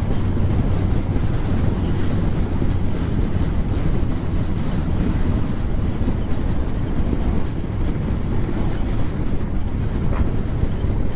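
Wind rushing over a motorcycle rider's helmet microphone at road speed, with the motorcycle's engine and road noise running steadily beneath.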